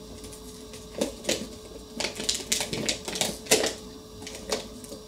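Irregular clicks and taps of a toy box and its packaging being handled and pried open by hand, over a faint steady hum.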